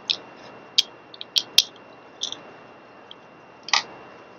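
Light clicks and ticks of small metal tuner parts and screws being handled and set down on a wooden table, a few scattered taps with gaps between them.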